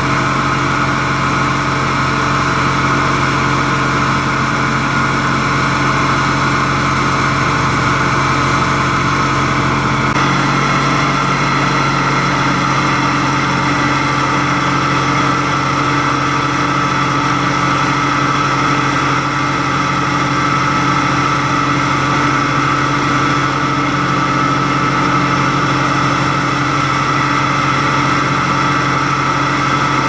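Fire engine's motor running at a steady speed, driving its water pump to feed the hoses.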